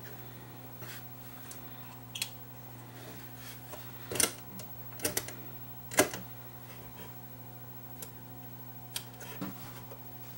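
Steady low mains hum from the 1948 Marconi 238 tube radio, powered up with no station coming through; the hum shows the set is alive, with no stations tuned in. Sharp clicks come through it now and then as the tuning shaft and preset push-buttons are worked, the loudest about six seconds in.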